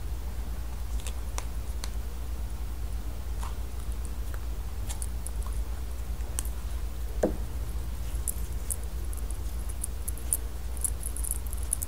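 Faint, scattered clicks and soft taps of hands handling a plastic Play-Doh tub and working the dough, with one slightly louder tap about seven seconds in and small light ticks near the end, over a steady low hum.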